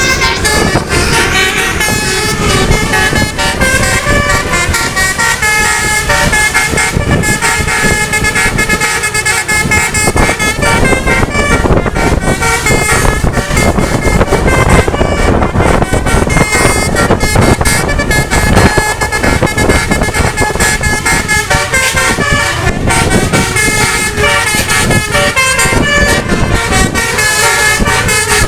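Basuri telolet bus horns, multi-trumpet air horns, playing quick runs of changing notes one after another without a break, over the steady noise of the running buses.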